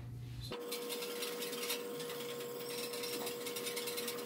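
Chosera 600-grit water stone scraping back and forth along a wet cleaver edge in a guided sharpener, a steady gritty rasp of stone on steel. Starting about half a second in, a faint steady hum runs underneath.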